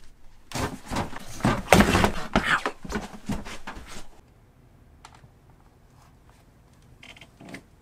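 A quick run of thumps, knocks and rustling, like a person scrambling and bumping about in a small room, lasting about three and a half seconds, then a few faint knocks near the end.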